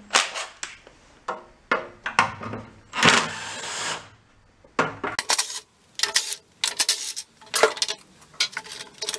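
Metal hand tools and sockets clinking and the plastic engine cover being handled as the top shroud comes off a Toro walk-behind mower's engine. It sounds as a string of sharp clicks and clanks, with a short scraping rush about three seconds in.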